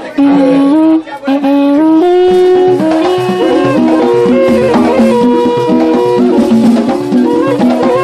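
Music: a melody of held notes stepping up and down, with a horn-like sound over drums and percussion.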